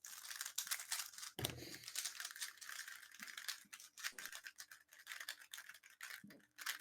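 Plastic speedcube being turned rapidly: a dense, fast run of small clicks and scrapes from the layers snapping past each other.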